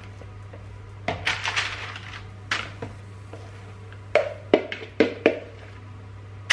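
A metal spoon scraping sticky cookie dough around a mixing bowl, then knocking against the bowl in several sharp clicks about four to five and a half seconds in.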